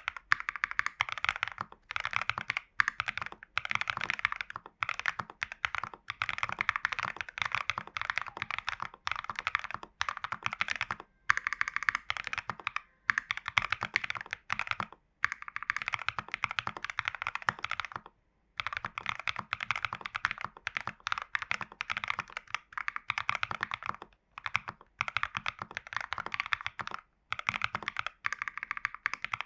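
Fast, continuous typing on a custom mechanical keyboard: lubed AKKO Vintage White linear switches in a TU40 plastic case with case foam, PCB foam and tape mod. The keystrokes come in quick runs with brief pauses between them.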